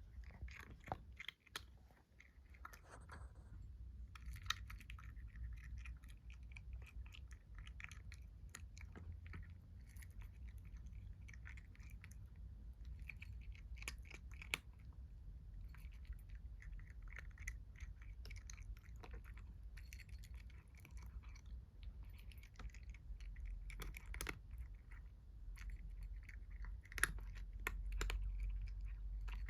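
A kitten chewing its food: a continuous run of small clicks and crunches.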